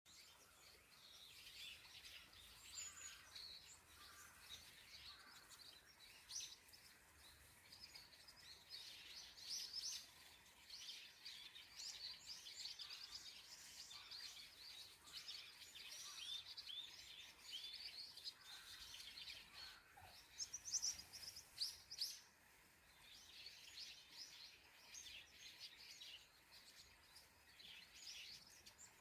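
A chorus of small songbirds chirping and singing, many short calls and trills overlapping, with a louder burst of calls about two-thirds of the way through.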